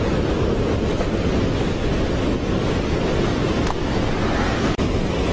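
Ocean surf washing against rocks below, with wind buffeting the microphone: a steady, even rush of noise.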